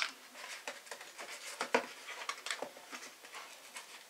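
Foamboard pieces being handled and slid on a cutting mat: a sharp tap at the start, then irregular light scrapes, rustles and taps.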